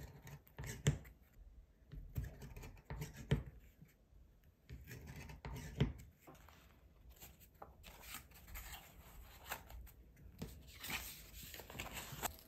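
Hand-held awl-style hole punch being pushed through kraft cardboard on a punching pad, giving a handful of sharp clicks and light crunches over the first half. This is followed by softer scraping and rustling of cardboard and paper as the cover and pages are handled.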